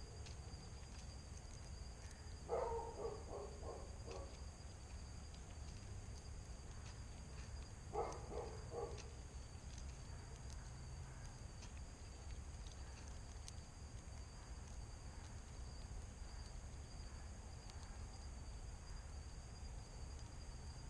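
Faint steady high-pitched insect chorus of evening. Twice, a short run of rapid, lower-pitched pulses, each run lasting a second or two, comes about two and a half seconds in and again about eight seconds in.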